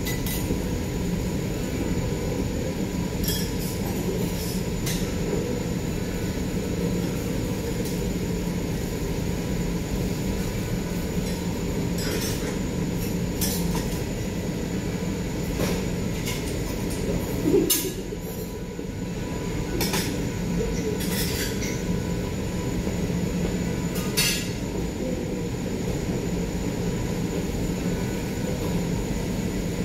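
Steady rumble of a teppanyaki grill station, with about a dozen short, sharp metal clinks of spatulas on the griddle scattered throughout and one louder knock a little past halfway.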